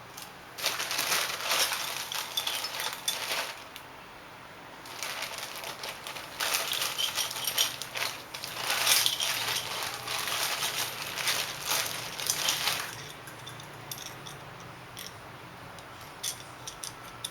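Small plastic toy cars clattering and rattling as they are handled and rummaged through: two long spells of dense clicking and rustling, then only scattered clicks for the last few seconds.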